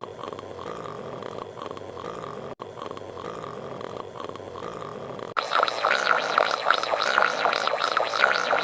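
Patrick Star's cartoon snoring sound effect, played as a run of electronically altered versions. It switches to a new version about two and a half seconds in and again about five seconds in, where it becomes louder with a fast pulsing flutter.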